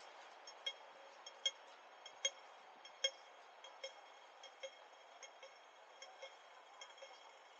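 Audible pedestrian crossing signal ticking, a short sharp tick about every 0.8 seconds, fading over the last few seconds, over faint steady street noise.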